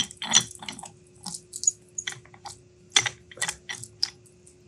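Hardened steel crescent jaw segments of a fractal vise clicking and clinking against each other as they are moved and reset by hand: an irregular run of sharp metal clicks, about a dozen, with short pauses between.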